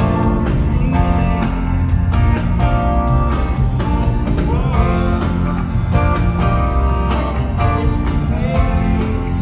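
A rock band playing live: guitar over bass and a steady drum beat, with some singing.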